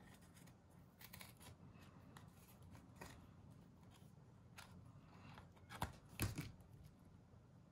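Small craft scissors cutting out a sheet of die-cut paper words: a few quiet snips, with two sharper clicks of blade and paper near the end as the sheet is turned.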